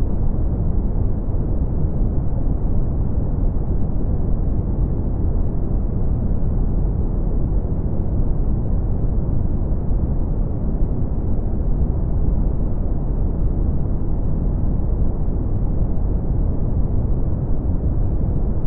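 Brown noise: a steady, unbroken deep hiss, heaviest in the bass and tapering off with no treble.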